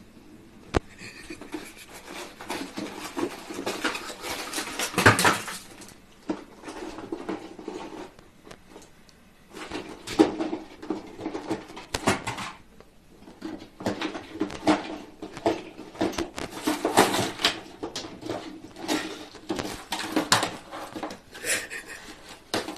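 A cat rummaging in an open wooden kitchen drawer: irregular rattling, clattering and rustling of the drawer's contents in bursts, as packets and papers are pawed about and knocked out onto the floor.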